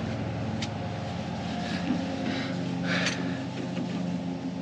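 A steady low mechanical hum, with a few brief faint scuffs and rustles over it.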